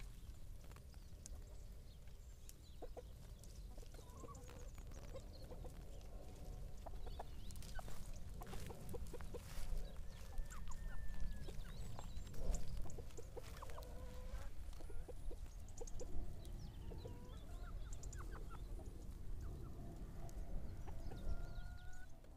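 Flock of domestic hens clucking as they forage in grass, short calls scattered throughout and louder and busier between about 8 and 16 seconds in, over a steady low rumble.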